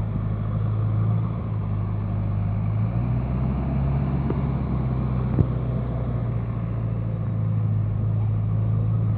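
A steady low mechanical hum that shifts slightly in pitch about three seconds in, with a single faint click midway.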